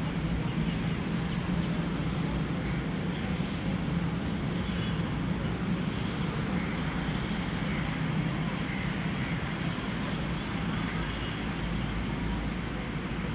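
Steady road traffic noise, a low hum under a constant hiss, with a few faint high chirps about ten seconds in.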